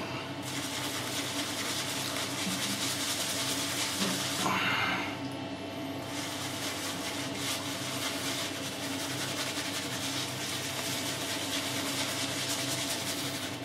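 Badger-hair shaving brush working shaving cream into a lather on a bearded face, a steady bristly scrubbing hiss with a brief louder swell about four and a half seconds in.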